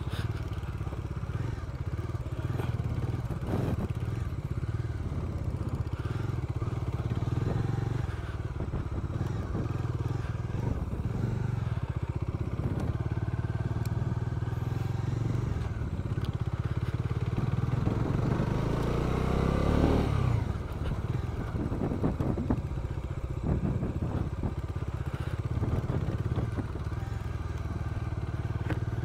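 Bajaj Dominar 250's single-cylinder engine running at low speed on a bumpy dirt track, heard from the rider's seat. About two-thirds of the way through, it revs up with a rising whine and then drops back off sharply.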